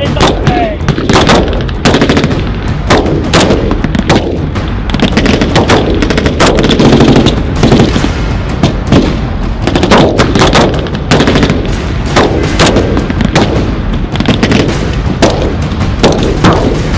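Battle gunfire from reenactors' rifles and machine guns firing blanks: rapid, irregular shots, several a second and often overlapping, over a steady low rumble.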